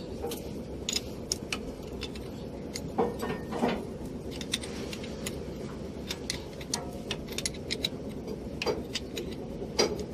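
Scattered light metallic clinks and ticks of a spanner on the mounting nuts of a new truck starter motor, with a few louder knocks, over a steady low background noise.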